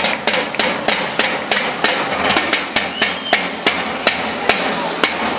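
Fast, rhythmic sharp knocks, about four to five a second, over a steady background hiss.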